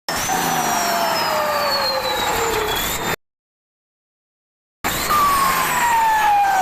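Turbocharged Mitsubishi Fuso 6D16 inline-six diesel with the turbo whistling and hissing, a high whine that falls steadily in pitch over about three seconds. The sound cuts out completely for about a second and a half, then comes back with another falling whistle.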